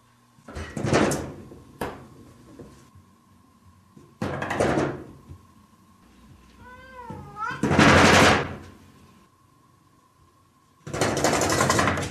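A cat drumming its paws against a door in four bursts of rapid knocking, the loudest about eight seconds in. A short meow comes just before it, about seven seconds in.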